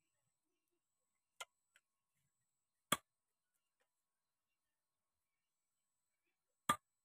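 A few short, sharp knocks from handling fish and a knife on a wooden chopping block: two light clicks about a second and a half in, then a louder knock about three seconds in and another near the end.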